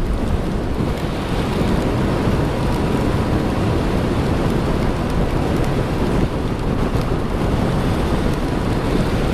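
Steady rushing wind and road noise of a motorcycle ride at speed in heavy rain, the wind buffeting the microphone.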